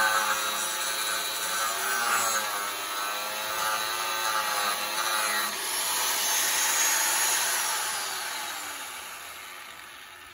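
Angle grinder with a cutting disc cutting through a steel exhaust pipe. The motor's pitch wavers and slides as the disc bites under load, and the sound fades away over the last few seconds.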